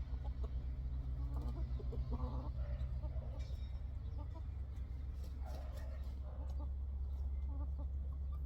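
Domestic chickens clucking, with short calls coming in clusters, over a steady low rumble.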